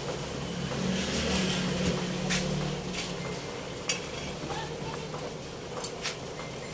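Pot of beef rib soup at the boil, the broth bubbling with scattered sharp pops and ticks, over a low steady hum.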